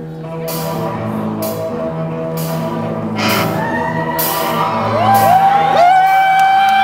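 Live rock band of electric guitars, bass guitar and drum kit playing, with cymbal crashes about once a second. About five seconds in, a high note slides up, is held and bends down over the band.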